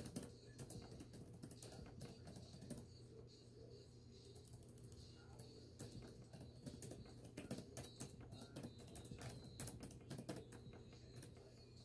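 Typing on a laptop keyboard: a fast, irregular run of faint key clicks, over a low steady hum.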